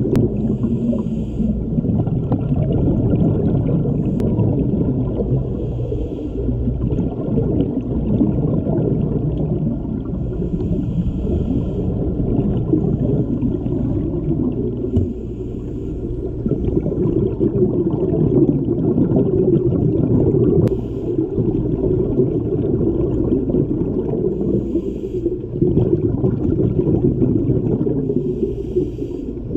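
Underwater sound of scuba diving: a steady low rumble, with the hiss and gurgle of exhaled regulator bubbles returning every few seconds and a faint steady whine.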